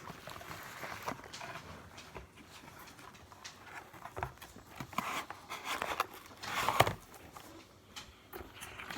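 Scattered handling noises in a small room: light taps, clicks and short rustles as objects are moved about, with a louder knock and rustle about seven seconds in.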